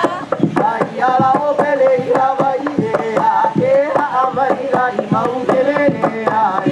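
Hawaiian hula chant: a voice chanting with long held notes, accompanied by ipu gourd drum strikes in a steady beat.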